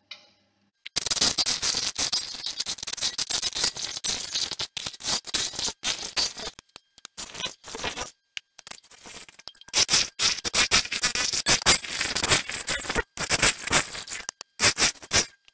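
A turning tool cutting into a spinning wooden blank on a wood lathe, throwing shavings. The cut starts about a second in as a loud, hissing scrape that comes in bursts with brief breaks where the tool eases off.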